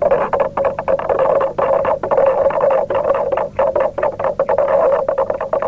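A stick stirring a bacterial insecticide solution in a clear plastic container, knocking and scraping against its sides in quick, irregular clicks with a steady ringing note from the container.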